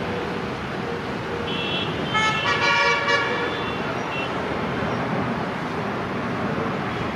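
WAP-7 electric locomotive's horn: a short high toot about one and a half seconds in, then a fuller, chord-like blast of about a second. Both sound over a steady rushing noise.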